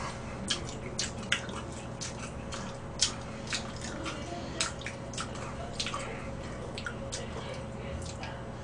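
Close-up eating sounds: irregular wet clicks and smacks of chewing, about two a second, over a steady low hum.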